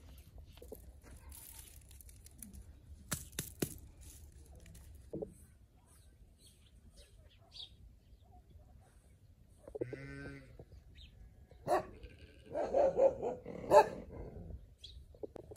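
Livestock bleating: a single call about ten seconds in, then a run of louder overlapping calls near the end. A few faint clicks come earlier.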